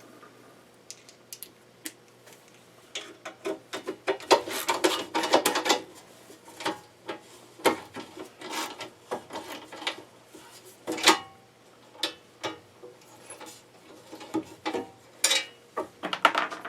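Hand tools clinking, tapping and scraping on a small air compressor's housing as its cover is worked off, in irregular bursts with short pauses between.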